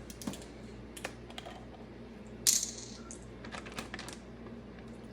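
Scattered light clicks and taps of a marinade bottle and dish being handled, with one short, louder hissy snap about two and a half seconds in.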